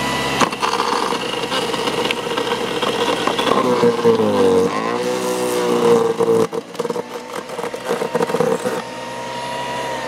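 A SunJoe 14-amp electric wood chipper/shredder runs with a steady motor whine while wood is fed in and shredded, making rapid crackling. About four seconds in, the motor bogs down under the load and its pitch drops, then it picks back up.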